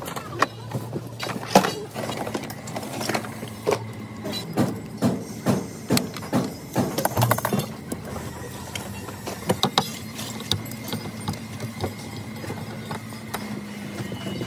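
Hand tools clicking and knocking irregularly over a steady low hum, the knocks thickest in the first half.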